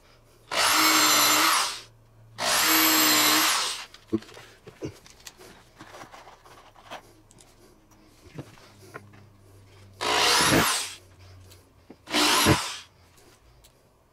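Corded power drill running in short bursts into pine boards: two bursts of about a second and a half, then a few light knocks of wood being handled, then two shorter bursts, the first rising in pitch as the motor spins up.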